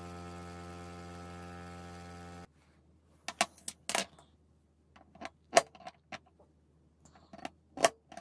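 Bench grinder running steadily with a drill bit held against its grinding wheel, stopping abruptly about two and a half seconds in. Then about ten sharp metallic clinks, some loud, as steel washers and a small metal bit are set down and moved on a laminate tabletop.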